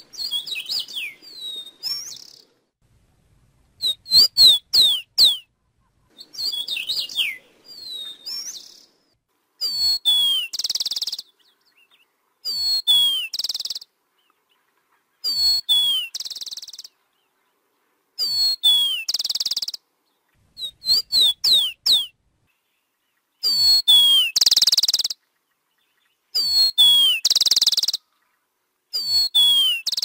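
Rufous-collared sparrow singing. The first few seconds hold quick, varied chirps and steeply falling whistles. After that the song repeats about every three seconds: one to three clear down-slurred whistles followed by a short buzzy trill.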